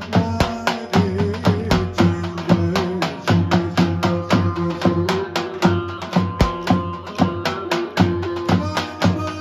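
Turkish folk dance music: a davul, the large double-headed bass drum, beaten with a stick in a steady quick beat, over a wavering melody line and a low held tone.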